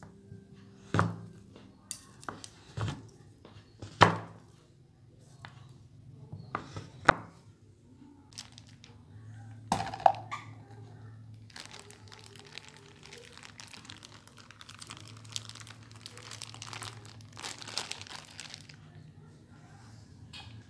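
Kitchen food-prep handling: a series of sharp knocks in the first seven seconds and another about ten seconds in, then several seconds of dense crinkling and scraping while butter is spooned into a steel bowl.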